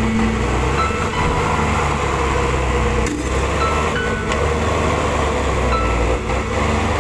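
Diesel dump truck's engine running steadily under heavy load as its rear wheels churn through deep mud.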